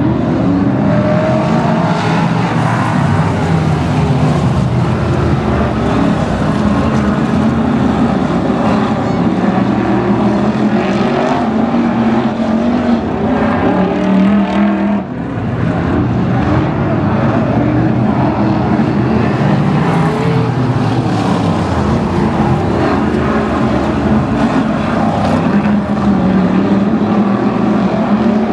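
Several BriSCA F1 stock cars' V8 engines running together, loud and continuous. The sound dips briefly about halfway through.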